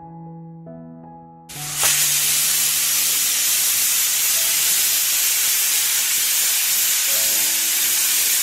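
Pressure cooker's first whistle: steam starts jetting out suddenly about one and a half seconds in and keeps up a loud, steady hiss, the sign that the cooker has come up to full pressure on high flame. Soft background music plays before the hiss starts.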